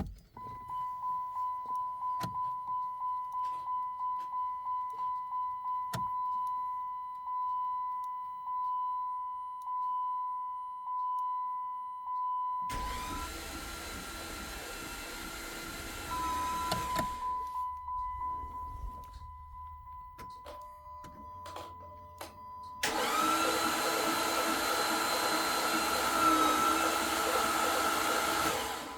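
A 2008 Dodge Charger 3.5 V6 making an unexplained whining noise. A high steady tone pulses in level, about twice a second at first and then more slowly. Twice it gives way to a louder hissing whine that lasts several seconds.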